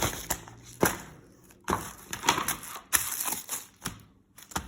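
A package being opened by hand: irregular rustling and crackling of packaging, with a few sharp clicks.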